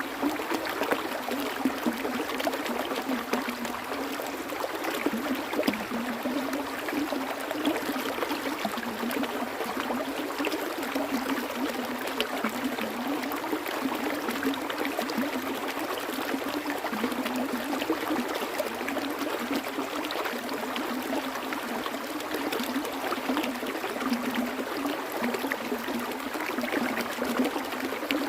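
Running water: a small stream flowing and gurgling steadily, with fine splashing and trickling detail.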